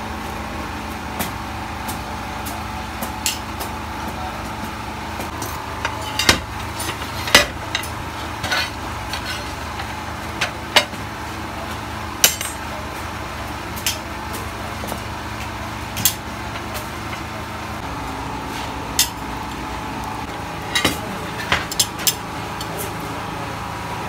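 Sharp metallic clinks and knocks at irregular intervals, metal tools and pieces striking one another, over a steady mechanical drone in a brass-casting workshop.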